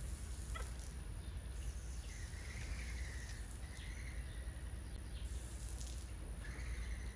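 Water trickling from a garden hose spray nozzle, with a high wavering whistle-like call twice, the first lasting a couple of seconds.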